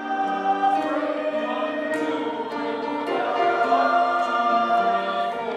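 Mixed choir of women's and men's voices singing slow, sustained chords that change every second or so.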